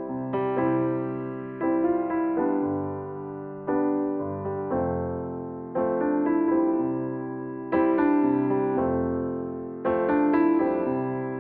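Slow, gentle solo piano background music, chords struck about every one to two seconds and left to ring and fade.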